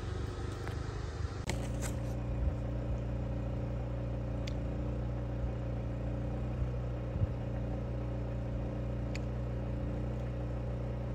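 Steady engine hum at one unchanging low pitch, starting abruptly about a second and a half in, with a few faint ticks over it.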